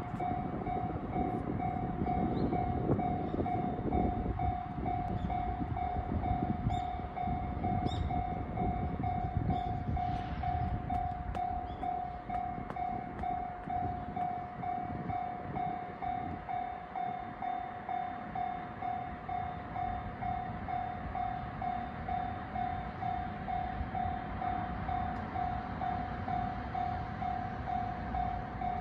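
Japanese railway level-crossing alarm ringing, one electronic ding repeating quickly and evenly without a break, over a low rumble that is heavier in the first half.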